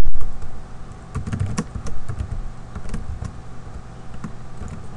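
Typing on a computer keyboard: irregular key clicks as a line of code is entered. There is a loud thump right at the start, over a faint steady low hum.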